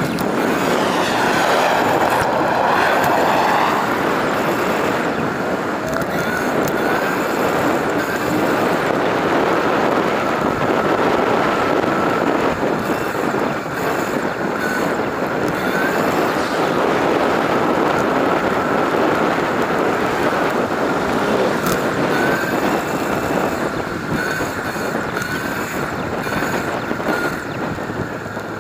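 Steady rush of wind and road noise from a bicycle riding along a paved city road, with a faint thin steady whine running through it.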